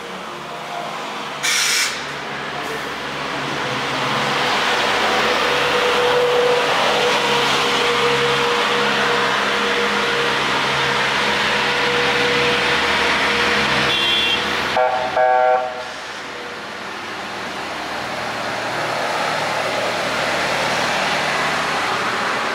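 Police water cannon truck working close by: a steady rushing noise of its engine and spray that swells and holds. There is a short sharp burst near the start and a brief horn blast about fifteen seconds in.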